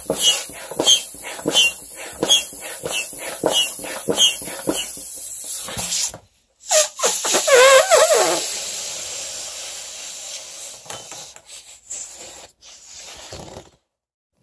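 Foot-operated bellows air pump inflating a balloon, about two and a half strokes a second, each with a puff of air and a short squeak. After a short pause, air let out through the balloon's neck squeals with a wavering pitch for about two seconds, then drops to a hiss that fades away as the balloon empties.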